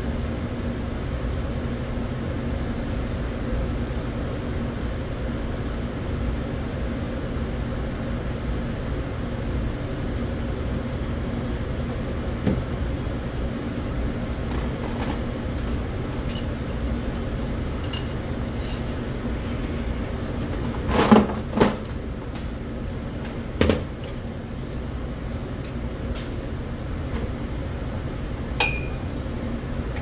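A steady mechanical hum with a faint low tone held throughout. About two-thirds of the way through comes a cluster of sharp metallic clanks, the loudest moment, and near the end one more clank that rings briefly.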